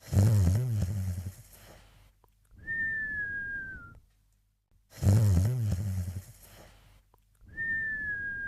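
Cartoon snoring sound effect: a loud snore followed by a thin whistle that slides slightly down in pitch, in a repeating cycle. The snore comes at the start and again about five seconds in, and the whistle about two and a half seconds in and again near the end.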